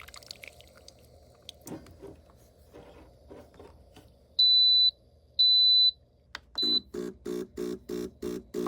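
Neretva espresso machine beeping: two long high beeps and a short third one. It is followed by its pump running in a rhythmic pulse, about four pulses a second, with a few faint clicks before the beeps.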